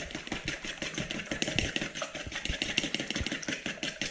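Homemade hot chips deep-frying, the oil sizzling and crackling steadily with a dense run of quick pops.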